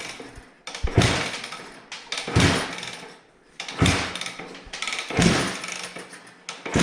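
Suzuki RM250 two-stroke dirt bike being kick-started over and over: about five kicks roughly a second and a half apart, each a sudden clunk and brief turn-over of the engine that fades away without it firing.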